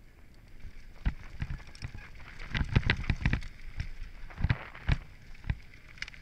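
Downhill mountain bike clattering over a loose, rocky dirt trail at speed: a run of sharp knocks and rattles from the bike hitting rocks, densest in the middle, over a steady rush of tyre and wind noise.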